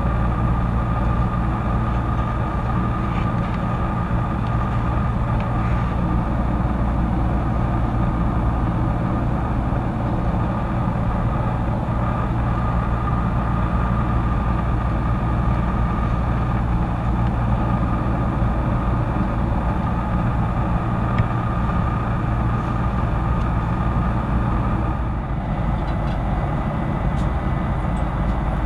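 Steady in-flight cabin noise of a Boeing 767-300ER: a constant drone of engines and airflow, with a steady hum in the middle of the range.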